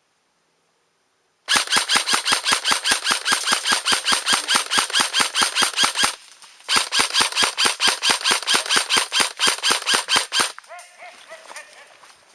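Airsoft electric gun firing on full auto in two long bursts of rapid, evenly spaced shots, each shot with a short mechanical chirp. The first burst starts about a second and a half in and runs about four and a half seconds; after a half-second break the second runs about four seconds.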